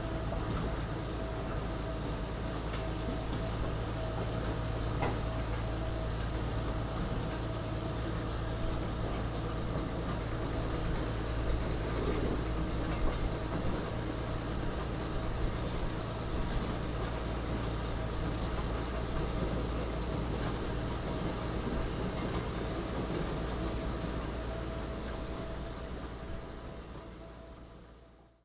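GE 45-ton diesel locomotive running along the track, heard from its own platform: a steady engine drone with a steady higher tone over it and a few faint clicks. It fades out near the end.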